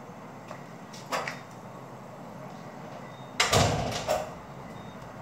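Kitchen handling noises while chopped rosemary is sprinkled from a small glass bowl onto bread on a metal baking tray: a short brushing sound about a second in, then a louder bump about three and a half seconds in, with a smaller one right after.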